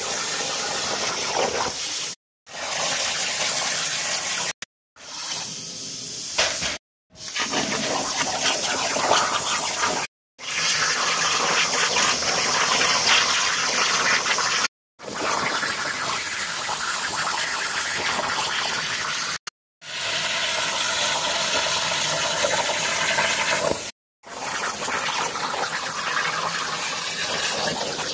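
CNC plasma cutting torch cutting sheet metal over a water table: a loud, steady hiss of the plasma arc, broken by short silences every few seconds.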